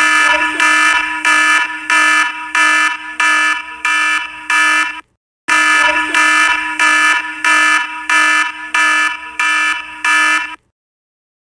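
A loud electronic alarm, as a sound effect, beeping about one and a half times a second over a steady low tone. It sounds in two runs of about five seconds with a short break between, then stops.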